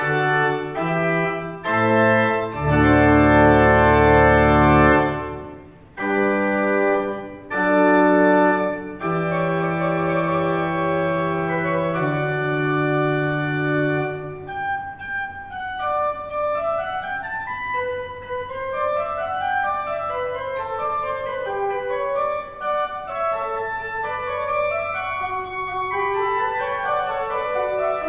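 Pipe organ playing the postlude: loud, sustained full chords over a deep pedal bass, a short break about five seconds in, then a lighter passage of quick notes that climb and fall.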